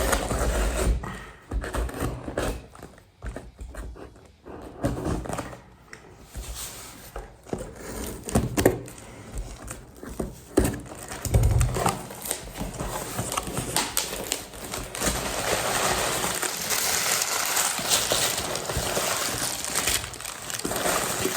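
A parcel being cut open with scissors and unpacked by hand: scattered snips, knocks and handling thumps, then from about twelve seconds in a steady rustling and crinkling of the packaging.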